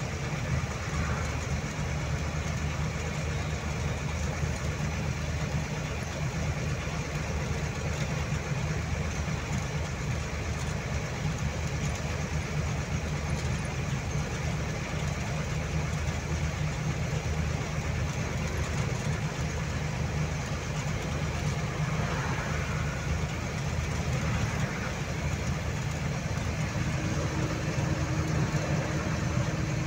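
Truck's diesel engine running steadily at highway speed with tyre and road noise, heard from inside the cab. A faint steady hum joins near the end.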